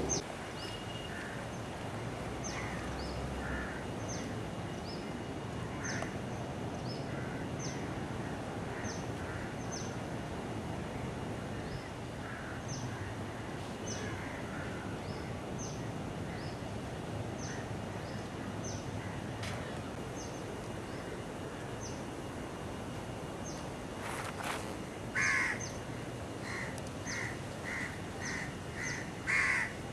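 Crows cawing, with a quick run of about seven caws near the end, over a steady outdoor background. A short, high chirp repeats about once a second throughout.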